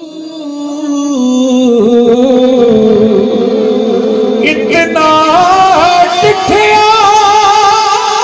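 A man singing a Punjabi naat into a microphone, holding long wavering, ornamented notes with no clear words. The voice swells louder about a second in and steps up to a higher pitch about five seconds in.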